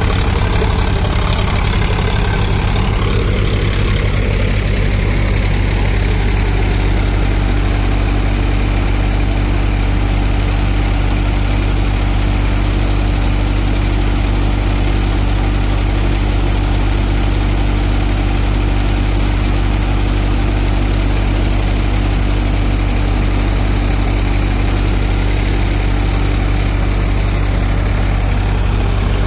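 A Sonalika DI 50 tractor engine running steadily while driving a Deepak multicrop thresher, whose drum and blower add a steady whirring machine noise as it threshes.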